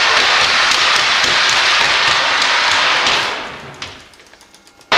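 Rubber-powered tandem-wing aerotrain model running along its wooden guideway: a steady rushing, rattling noise that dies away over about a second starting about three seconds in as the run ends, with a single click near four seconds, then much quieter until the noise cuts back in suddenly at the end.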